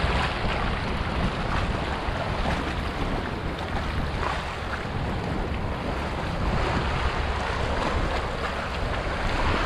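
Small sea waves washing and splashing around shoreline rocks, with wind buffeting the microphone as a steady low rumble.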